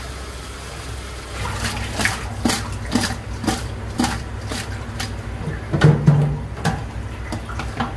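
Tap water running and splashing over small fish in a stainless-steel colander as they are rinsed by hand. About a second and a half in, background music with a steady beat of about two knocks a second comes in.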